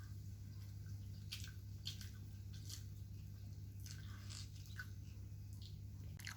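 Faint sounds of a child eating finger food: soft chewing and mouth clicks, scattered every half-second to a second, over a steady low hum.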